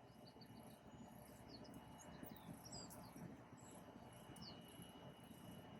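Near silence with faint scattered bird chirps, short high notes some sweeping downward, and a faint steady high insect-like tone.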